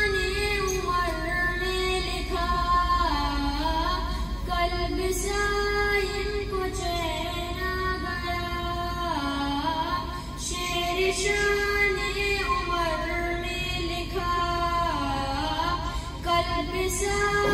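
A boy singing an Urdu naat (devotional poem) unaccompanied into a microphone, in long drawn-out melodic phrases that each fall away at the end.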